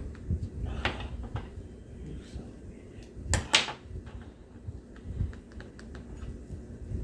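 Small tools and RC truck parts being handled on a workbench: scattered light clicks and knocks, a short scrape about a second in, and two sharp clacks in quick succession near the middle.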